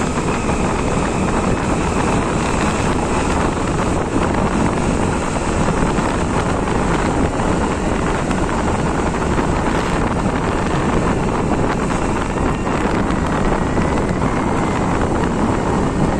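Steady wind rushing over the microphone of a moving two-wheeler, mixed with its running engine and tyre noise on the road.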